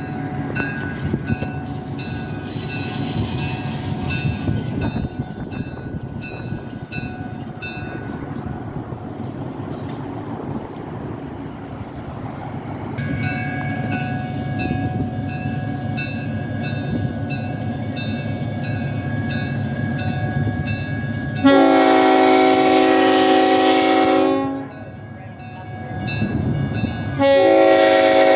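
Railroad crossing bell ringing about twice a second over a low rumble, with a pause in the ringing partway through. Near the end a locomotive horn sounds a long blast of about three seconds, and a second blast starts just before the end.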